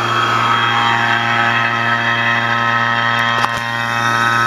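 Refrigeration vacuum pump running with a steady hum, evacuating a heat pump's refrigerant lines. A short click about three and a half seconds in.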